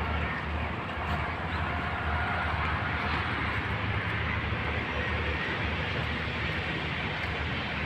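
Steady road-traffic noise: a continuous hiss with a low rumble underneath.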